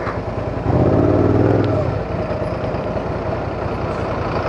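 Suzuki SV650's V-twin engine running at idle in slow city traffic. About a second in, a louder engine rumble from nearby traffic swells for about a second, then fades.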